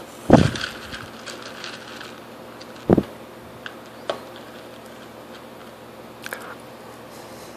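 A toddler's hands on a plastic high-chair tray while picking at Cheerios: two dull thumps about two and a half seconds apart, then a few light clicks and taps.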